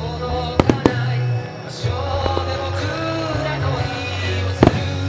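Fireworks shells bursting over loud festival music: two sharp bangs close together about half a second in, and another near the end.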